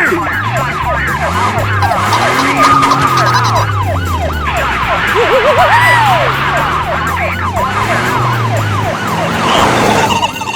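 Cartoon police siren sound effect, a quick rising-and-falling wail repeating two or three times a second, over a vehicle engine revving up and down.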